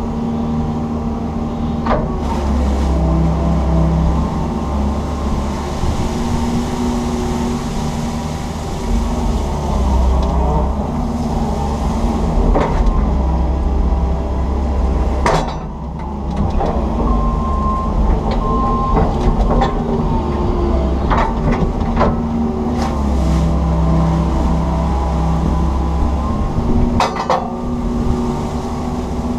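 Komatsu PC160 excavator's diesel engine and hydraulics running under load, heard from inside the cab, the engine note swelling and easing as the arm digs. Several sharp knocks and clanks come through, a few seconds apart.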